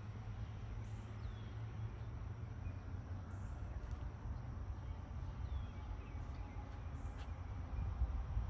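Outdoor ambience: a steady low rumble with a few faint, brief bird chirps and a couple of light clicks near the end.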